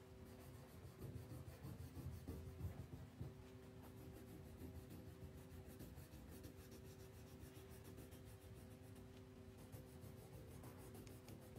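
A crayon scratching faintly on paper, rubbed back and forth while colouring in, a little louder in the first few seconds.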